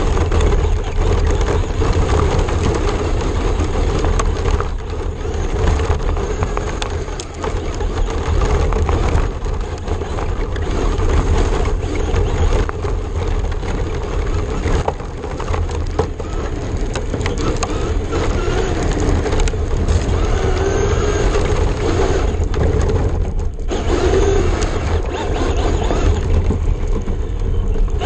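Traxxas RC car driven fast over gravel, heard from a camera riding on the car: a loud, steady rumble and the crunch of tyres on loose stones, with the motor's pitch wavering as the throttle changes.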